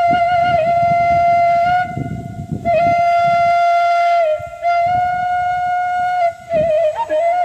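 Background music led by a flute-like wind instrument holding long, slightly wavering notes, each about two seconds, with short breaks between them and quicker ornamented notes near the end.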